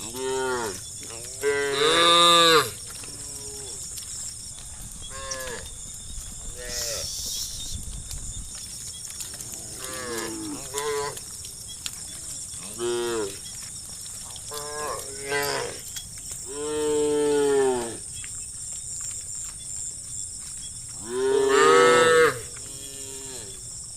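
A herd of cattle mooing, a dozen or so calls one after another, each one sliding down in pitch; the loudest moos come about two seconds in, past the middle, and near the end. A steady faint high hiss lies underneath.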